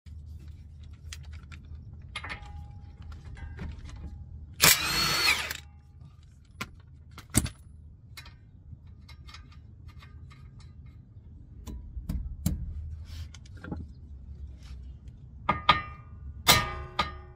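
Scattered clinks of tools and parts at a car's front suspension, with a loud second-long burst of noise about five seconds in. Near the end a hammer strikes the steel steering knuckle three times, each blow ringing metallically.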